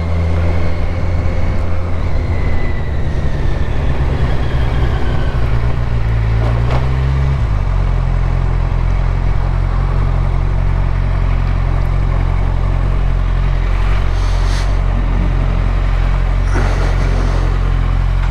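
Motorcycle engine running at low speed, then settling into a steady idle about seven seconds in.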